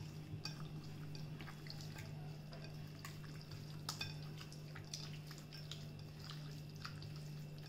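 Raw chicken pieces being mixed by hand with spice powders and lemon juice in a ceramic bowl: faint, irregular wet squishes and light taps of meat against the bowl.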